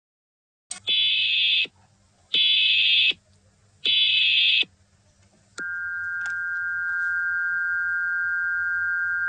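Emergency Alert System broadcast signal: three short digital data bursts (the SAME header) about a second and a half apart, then a steady two-tone attention signal starting about five and a half seconds in.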